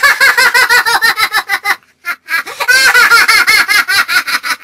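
High-pitched, rapid laughter, a quick run of 'ha-ha' syllables, in two long runs broken by a short pause about two seconds in.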